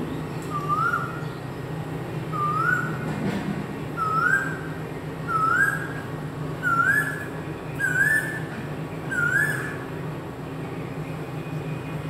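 Male Asian koel calling: seven rising whistled notes, about one every 1.4 seconds, each pitched a little higher than the last. A steady low hum runs underneath.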